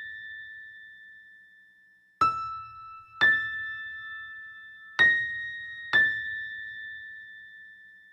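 Slow background music of sparse, bell-like keyboard notes, each ringing out and decaying slowly. Four notes fall in two pairs about a second apart, and the first note of the first pair is lower.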